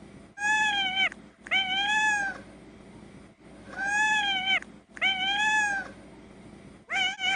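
A cat's meow, four long meows of the same arched shape about a second each, then near the end cut into quick short meows about three a second, strung together like a beat.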